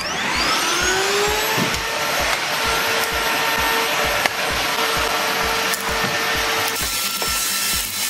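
Kärcher VC 5 Cordless battery stick vacuum switched on: its motor spins up with a rising whine over about a second, then runs steadily as the narrow nozzle vacuums carpet. Its pitch shifts near the end.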